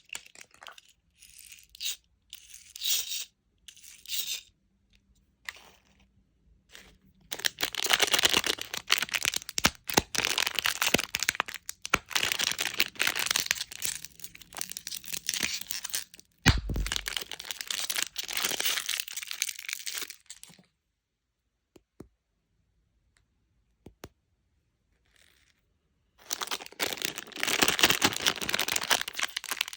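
Candy packaging being handled and torn open: plastic wrappers crinkling and tearing in long stretches of dense, rapid crackling. A short low thump comes about sixteen seconds in, and a few seconds of quiet come before the crackling resumes near the end.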